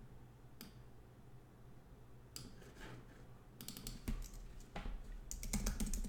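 Typing on a computer keyboard: scattered keystrokes in small clusters, with a quicker run of keys near the end.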